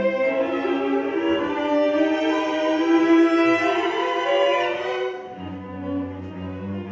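String quartet playing classical music: violins, viola and cello bowing held notes together. About five seconds in, the upper voices grow quieter and the cello sustains a low note beneath them.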